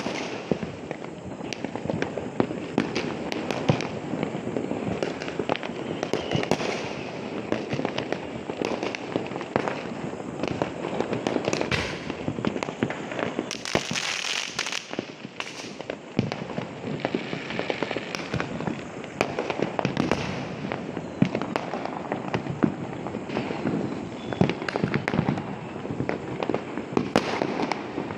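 Firecrackers and fireworks bursting in a dense, unbroken string of sharp bangs and crackles, with a brief hissing rush about halfway through.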